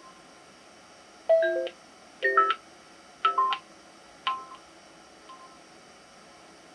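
A series of short electronic chime phrases, each a few quick falling notes, repeating about once a second and growing fainter until they die away.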